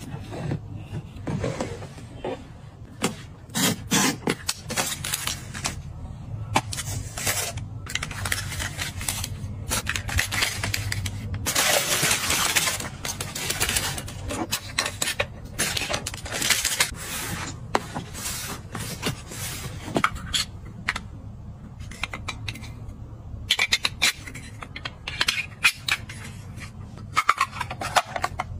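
Close-up crafting handling sounds: irregular clicks and taps of small hard objects, with stretches of rustling and scraping, loudest about a third of the way through.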